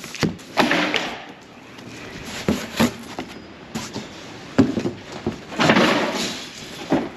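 Cardboard shipping box being opened by hand: flaps and sides scraping and rustling twice, with a few sharp knocks and thumps in between.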